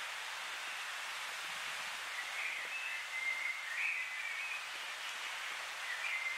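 Steady hiss of outdoor night ambience. From about two seconds in, short high warbling chirps come and go, like a distant bird calling.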